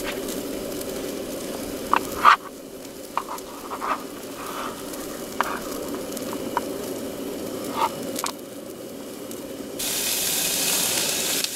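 Food sizzling in a frying pan on a portable gas cartridge stove, with scattered light clicks and scrapes of a spoon against a metal mess tin as rice is scooped into a bowl. Near the end the sizzling turns louder and hissier.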